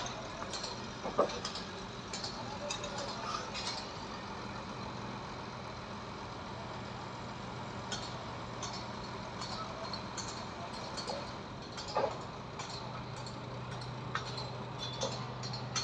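Construction-site machinery: a heavy diesel engine running steadily at a low hum, a little louder from about two-thirds of the way in, with scattered sharp metal clinks and knocks, the loudest about a second in and again near the three-quarter mark.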